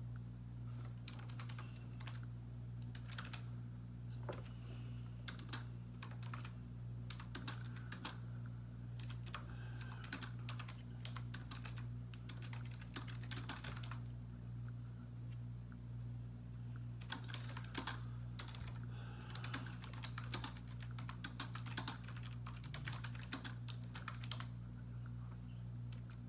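Computer keyboard typing in quick runs of key clicks, with a pause of a few seconds about halfway through, over a steady low hum.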